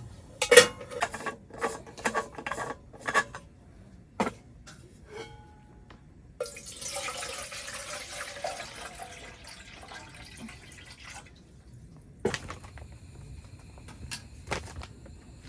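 Liquid poured into a pot for about five seconds, the pitch of the filling rising as it goes, between scattered sharp clicks and knocks of cookware being handled.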